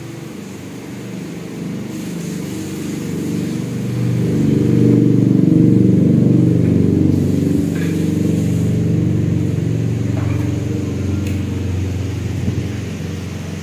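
A motor vehicle's engine passing by, growing louder over a few seconds, loudest about five seconds in, then slowly fading away.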